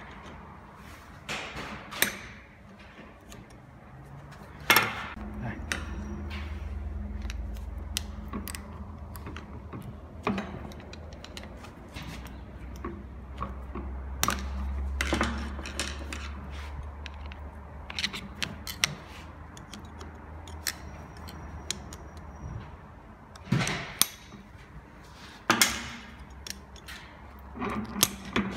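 Metal clicks, scrapes and sharp knocks of hand tools working a retaining circlip off a transfer-case intermediate shaft held in a steel bench vise, coming irregularly with a few louder strikes. A low hum sounds in the background through much of the middle.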